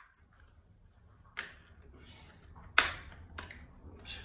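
A few sharp clicks and snaps about a second apart as wiring is handled and pushed into place by hand, the loudest near three seconds in.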